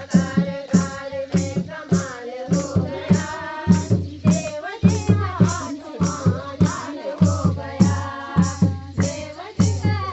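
Group of women singing a Pahari folk song (chanchari) together, with hand claps and a dholak keeping a steady, quick beat.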